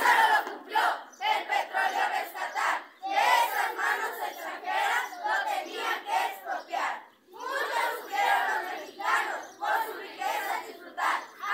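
A group of teenage students chanting words loudly together in unison, in short phrases with brief pauses between them, as a choral chant or recitation.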